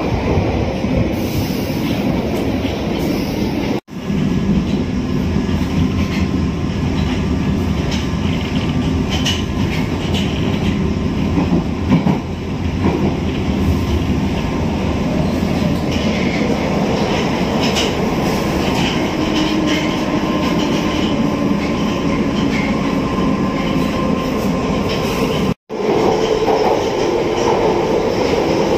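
London Underground train running, heard from inside the carriage: a loud, steady rumble of wheels on the rails with rattling and clatter. The sound breaks off abruptly for an instant twice, about 4 seconds in and near the end.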